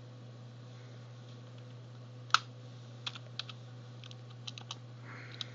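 Computer keyboard being typed on: one sharp keystroke a little over two seconds in, then a few scattered quick taps, over a steady low hum.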